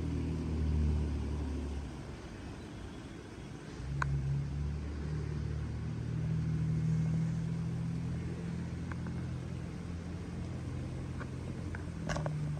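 Low, steady rumble with a hum. It dips about two seconds in and returns about four seconds in, with a few faint clicks near the end.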